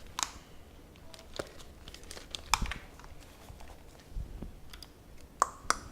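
Scattered light clicks and brief crinkling handling noises in a small room.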